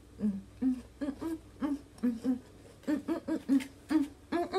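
A woman humming a tune in short, separate notes, about three a second, with the pitch stepping up and down.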